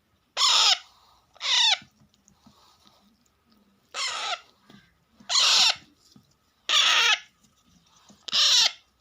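Baby Alexandrine parakeet chicks giving harsh, raspy food-begging calls: six calls of about half a second each, with short gaps between them. The calls are the sign that the chicks are hungry and want feeding.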